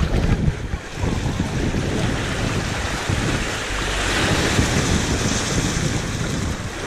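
Small shore-break waves washing up over the sand in shallow water, one surging in more loudly about four seconds in. Wind buffets the microphone with a low rumble throughout.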